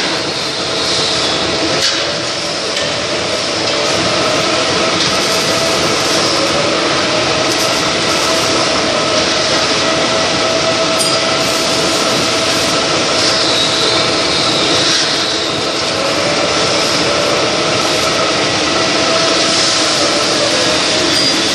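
Milling machine running with its end mill cutting a hexagon wrench flat on a metal fitting: a steady grinding cutting noise with a constant whine.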